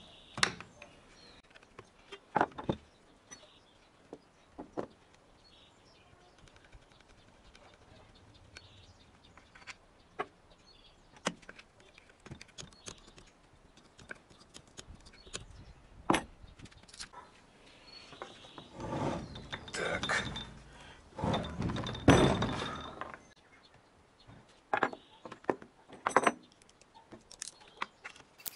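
Socket wrench and metal parts clinking and knocking as the intake manifold bolts of a Renault Logan cylinder head are worked loose. Scattered sharp clicks, then a longer stretch of knocking and scraping about two-thirds of the way through, which holds the loudest knock.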